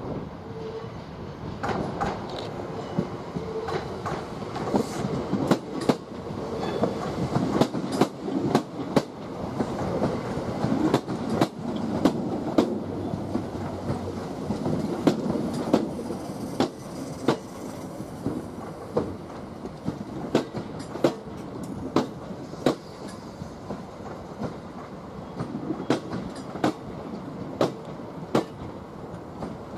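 Passenger train running along the track, its wheels clacking over rail joints and pointwork in a long run of sharp clicks over a steady rumble.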